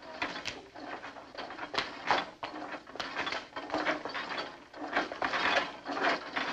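Gym noise of boys exercising on gymnastic rings and the floor: irregular knocks, clatter and scuffs, several every second.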